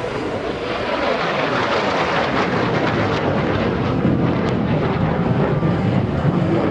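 MiG-17PF jet fighter's afterburning Klimov VK-1F turbojet roaring past on afterburner. The roar swells about a second in, with some crackle in the middle, and deepens toward the end as the jet passes and climbs away.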